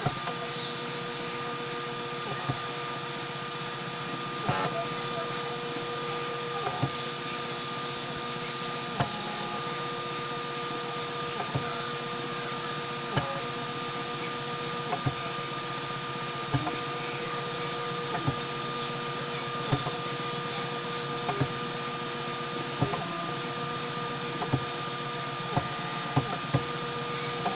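Homemade 3D printer running a print, its motors giving a steady whine. A sharp click comes every second or two, the clicks coming faster near the end.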